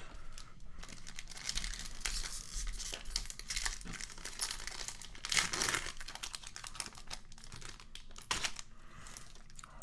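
Trading-card pack wrapper crinkling and tearing as it is pulled open by hand, a dense crackle with a louder rip about five seconds in.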